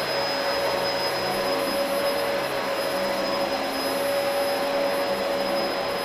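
Dyson DC04 Absolute Plus upright vacuum cleaner running steadily as it is pushed over carpet: a constant rushing motor noise with a steady whine.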